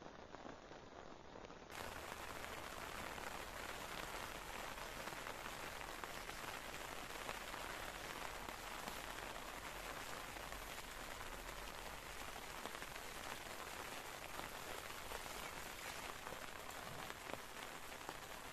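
Steady rain falling, an even, dense hiss that grows louder about two seconds in.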